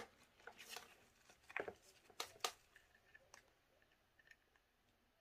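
Faint clicks and rustles of a plastic power-tool battery and its balance-lead wire connectors being handled with gloved hands, a handful of small clicks in the first three seconds or so.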